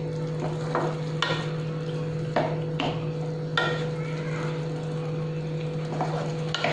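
A spatula stirring and scraping thick cauliflower curry around a non-stick kadai, with the mixture sizzling over a raised gas flame. Sharp scrapes come about once a second over a steady low hum.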